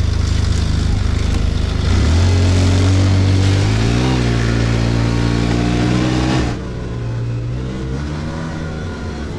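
Small engine of a snow vehicle pulling away. It revs up about two seconds in, and its pitch dips and climbs again around four seconds. A loud hiss rides on top and drops away suddenly near the end, leaving the engine running more quietly.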